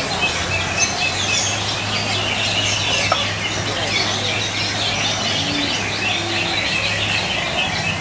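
Several caged cucak ijo (green leafbirds) singing at once in a crowded contest field: a dense, continuous mix of rapid chirps and whistled phrases. A steady low hum runs underneath.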